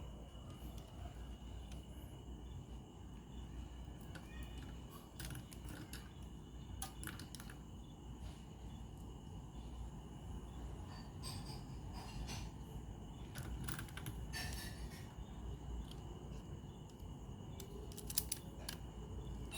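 Scattered light clicks and taps of small hard objects being handled, over a low hum and a faint steady high-pitched tone.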